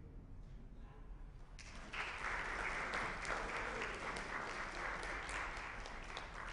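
Audience applause breaking out about two seconds in, after a short hush as a concert band's final chord dies away.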